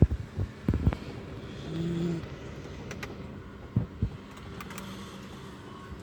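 Great Dane puppy snoring in its sleep, with one drawn-out pitched snore about two seconds in. A few low knocks come near the start and again about four seconds in.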